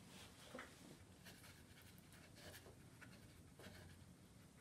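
Faint, soft strokes of a squeezed-out flat watercolour brush dabbing and brushing on paper, lifting paint out of a wet sky to form clouds, over a low steady room hum.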